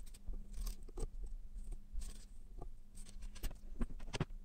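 Small clicks, taps and brief scratchy hisses from soldering header pins onto a small amplifier circuit board with a soldering iron, over a steady low hum. The sharpest clicks come in the last second or so.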